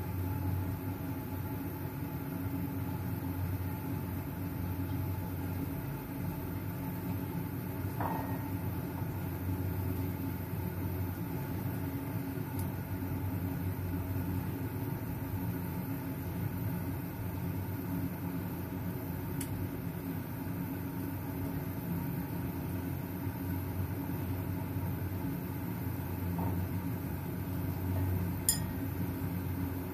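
Lidded pot of papaya lodeh broth simmering on the stove: a steady low rumble of heat and bubbling, with a few faint ticks, the sharpest near the end.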